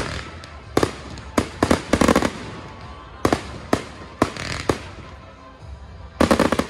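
Aerial fireworks display going off in a string of sharp bangs at irregular intervals, some bunched in quick runs, the densest run near the end.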